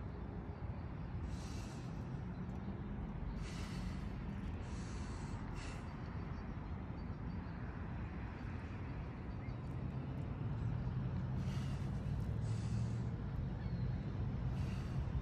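A man breathing in short, forceful breaths through the nose while straining to hold a horse stance. The breaths come in small clusters with a long pause around the middle, over a steady low rumble that grows a little louder near the end.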